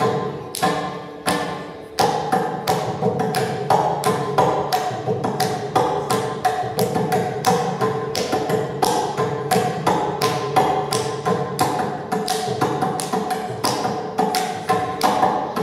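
Mridangam played in rapid, crisp strokes, several a second, over a steady drone, with a short lull about a second in before a strong stroke picks the pattern up again.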